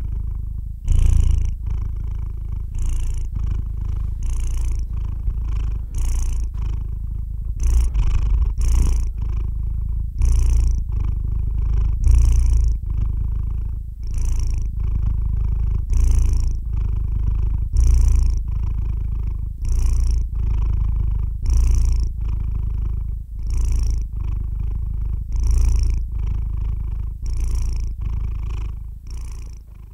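Domestic cat purring, a continuous low rumble that swells and eases in a regular rhythm with its breathing. The purr fades away near the end.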